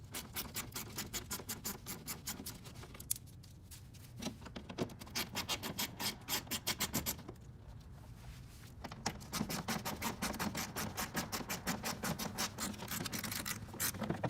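Ratchet wrench clicking in quick runs of several clicks a second as 10mm bolts are backed out of the bumper's underside, with short pauses between runs.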